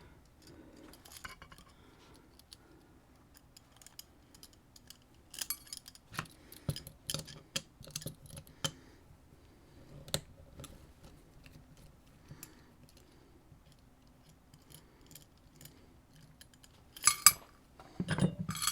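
Small metallic clicks and taps of tools and parts handled while a dimple lock is taken apart, scattered at irregular intervals, with a louder metallic clatter near the end.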